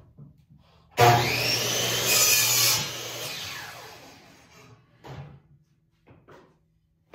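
Power miter saw switched on with a rising whine, cutting through wooden frame stock for under a second, then released and winding down with a falling whine. A couple of light knocks follow.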